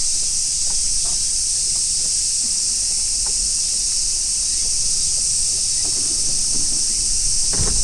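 A dense insect chorus makes a steady, high-pitched drone without a break, over a faint low rumble.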